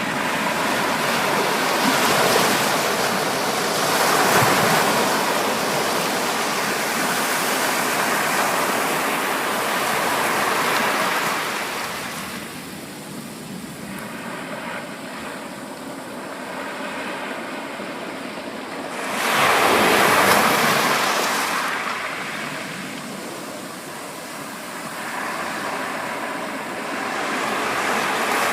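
Ocean surf breaking on a beach, the wash swelling and ebbing over several seconds; one wave breaks loudly about two-thirds of the way through.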